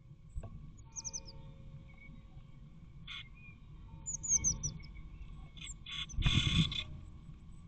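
Blue tits at a nest box: two short runs of quick, high, falling chirps, then a loud scrabbling rustle about six seconds in as a second adult lands at the entrance hole, over a faint steady hum.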